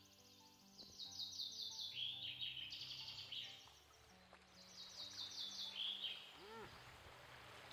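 A songbird singing two bursts of rapid, repeated high descending notes, each ending in a lower flourish, over faint background music with long held notes.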